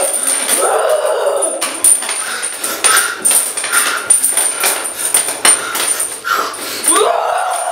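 Repeated guttural snarls and growls of a zombie, broken up by sharp clicks and knocks.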